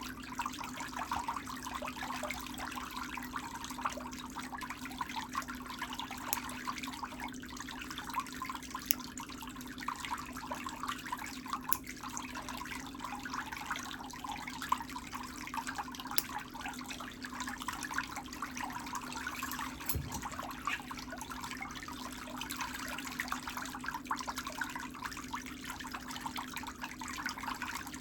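Water in a pedicure foot bath, a steady bubbling trickle over a constant low hum, with a few light clicks scattered through.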